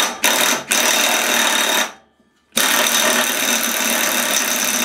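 Air impact wrench hammering on a mower-deck spindle pulley nut, in two long runs with a short pause about two seconds in. It is working loose a tight nut on a spindle with no blade on it to hold the shaft.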